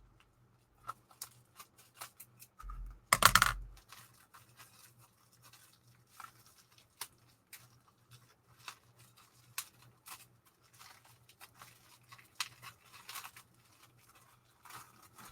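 Hands unwrapping a well-packed item: crinkling and scratching of the wrapping with scattered small clicks, and a louder rip of the wrapping about three seconds in.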